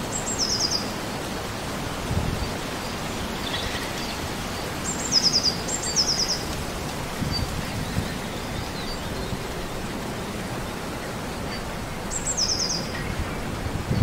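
Steady wind noise with occasional low gusts, and a songbird calling four times, each call a quick high run of short falling notes; the second and third calls come close together.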